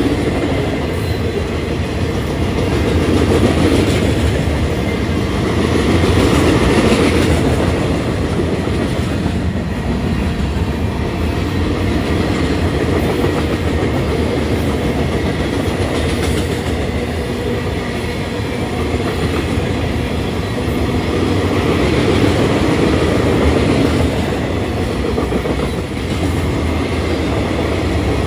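Freight train rolling past: a continuous rumble of railcar wheels on the rails, swelling and easing every few seconds.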